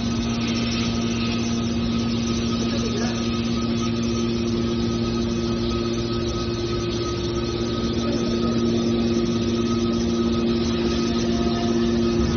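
Hydraulic scrap baler's power unit (electric motor and hydraulic pump) running with a steady hum.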